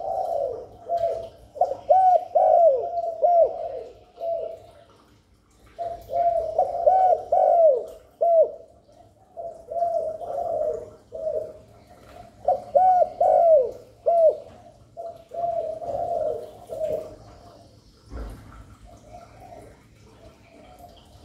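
Spotted dove giving its bowing coo (gáy gù): rapid runs of short cooing notes, each sliding down in pitch, in about five bursts separated by short pauses, with only faint coos in the last few seconds. This is the coo a kept male gives to draw wild doves in.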